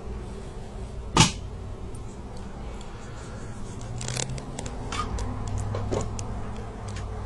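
One sharp, loud knock a little over a second in, then a scatter of light clicks and taps, all over a low steady hum.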